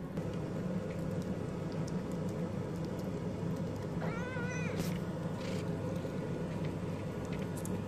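A Cornish Rex cat gives one short, wavering meow about four seconds in, over a steady low rumble. A Chihuahua gnaws a chew stick, with scattered light clicks.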